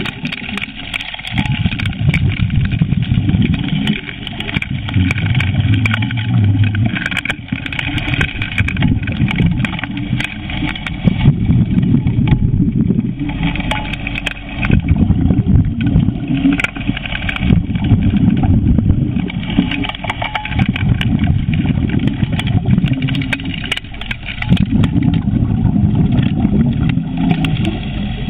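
A running gold suction dredge's engine and pump, heard underwater as a continuous low rumble that swells and eases every few seconds, with scattered faint clicks.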